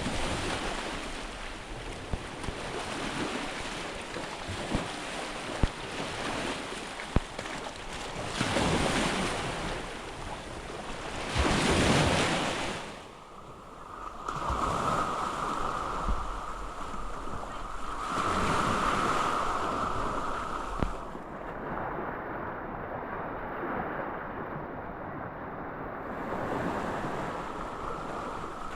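Waves washing onto a sandy beach, with two louder surges in the first half, and wind on the microphone. A steady, fairly high tone comes in about halfway through.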